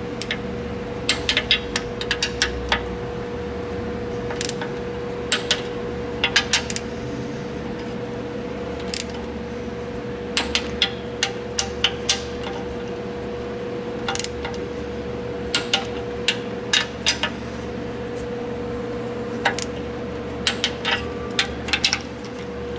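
Torque wrench with a 14 mm socket ratcheting and clicking on the cylinder head bolts of a 1.3-litre Suzuki Samurai engine during the final tightening pass toward the 46 to 50.5 ft-lb spec. It comes as short clusters of sharp metallic clicks every second or two, over a steady hum.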